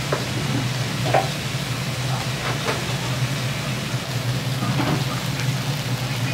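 Okonomiyaki frying on a teppan iron griddle, sizzling steadily over a low steady hum, with a few light knocks now and then.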